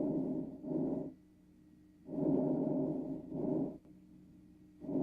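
Breath sounds from a lung auscultation recording, repeating about every three seconds: a longer breath of about a second, then after a brief gap a shorter one.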